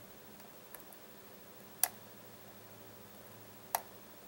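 Small, sharp metallic clicks of a pin-tumbler lock being picked: pins in a Baldwin lock cylinder clicking under the pick while tension is held, as pins set at the shear line. A faint click just under a second in, then two sharp clicks about two seconds apart.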